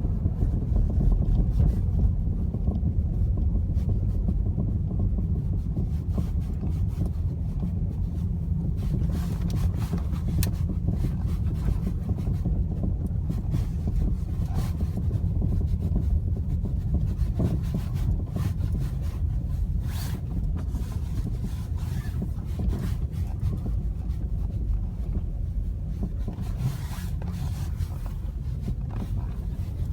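Opel Astra J front suspension knocking now and then over small road bumps, above the steady low rumble of the car driving. The owner traces the knock to play in the original front shock absorbers, not to the brake calipers.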